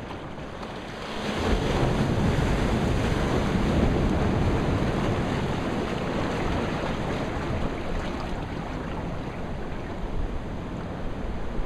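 Ocean surf surging against a rocky shore: a wave swells up about a second in and slowly eases off, with wind buffeting the microphone.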